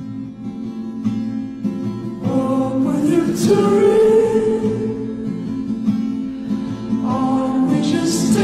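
Music with singing voices over sustained chords, swelling louder over the first three seconds.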